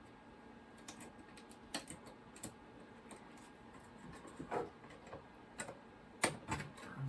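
Irregular light clicks and taps from handling a computer logic board and its small parts, a few louder knocks in the last couple of seconds, over a faint steady hum.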